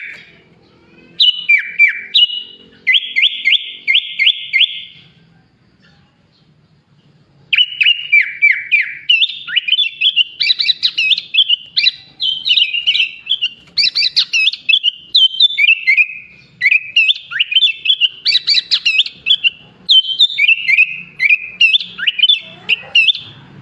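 A sooty-headed bulbul (kutilang) singing a varied song filled with borrowed phrases of bar-winged prinia, greater green leafbird and Asian pied starling. A few calls and a quick run of about six even notes are followed by a pause of about two seconds. Then comes a long, fast, unbroken stream of rising and falling chirps and trills.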